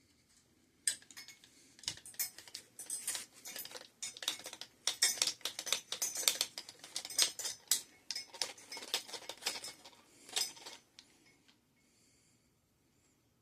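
Hand tools clicking and scraping in quick, irregular strokes against a bicycle brake lever clamp on the handlebar, as the stuck lever is worked loose. The strokes stop about eleven seconds in.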